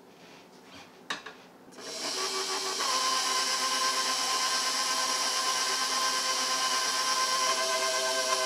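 KitchenAid Professional HD stand mixer starting up: a click, then about two seconds in its motor spins up and settles into a steady whine as the flat beater mixes the cookie batter while flour is added.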